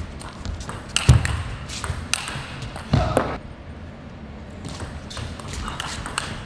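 Table tennis rally: the ball clicks sharply and repeatedly off the bats and the table. A voice calls out briefly about three seconds in.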